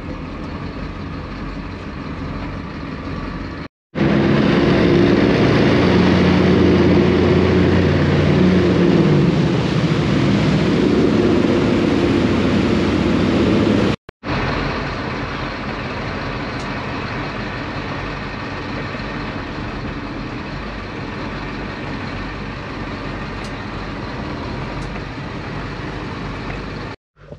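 A motor cruiser's inboard engines running. The engines are steady at first, louder under power for about ten seconds with the engine note dipping and rising, then steadier and quieter.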